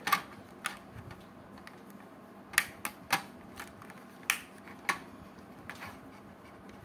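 Plastic cover of an LED emergency tube light being fitted back on: about eight sharp plastic clicks and knocks at irregular spacing, the loudest between about two and a half and five seconds in.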